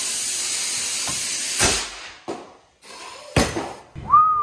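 Compressed air hissing loudly into a tire to seat its bead, ending about a second and a half in with a sharp bang, typical of the bead snapping onto the rim. Another knock and a short rising-and-falling whistle follow later.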